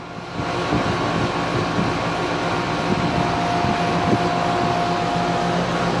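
Two 5-ton outdoor condensing units, a 2001 Carrier air conditioner and a 2014 Goodman heat pump, running in cooling mode: a steady hum of condenser fan and compressor. A thin steady whine joins it about three seconds in and drops out shortly before the end.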